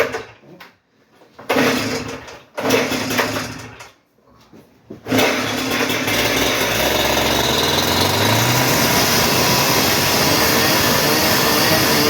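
Petrol cut-off saw being started: two short bursts that die away, then it catches about five seconds in and keeps running loudly, rising in pitch as it is revved.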